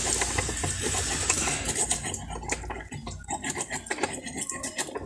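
Small screwdriver tip scraping fast against the steel shaft of a new forklift starter motor beside the bendix pinion, cleaning the part. It is a gritty scraping made of many small clicks, and it thins out after about three seconds.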